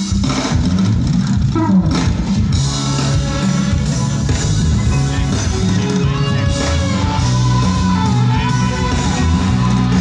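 Live band playing through a large outdoor PA system at a sound check, with drums, bass and electric guitar.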